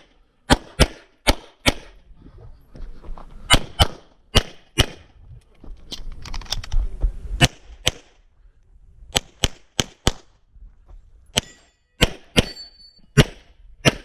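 Pistol shots on a USPSA stage: about sixteen sharp reports, mostly fired as quick pairs about a quarter to half a second apart, with pauses of one to two seconds between groups. One shot near the end is followed by a brief high ring.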